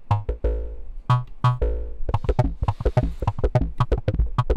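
Make Noise 0-Coast synthesizer sequenced by a 0-CTRL step sequencer: a few separate notes with deep bass thumps, then, about two seconds in, a fast run of short repeated notes. The run is the held step pad repeating its step at the clock rate, a ratcheting effect.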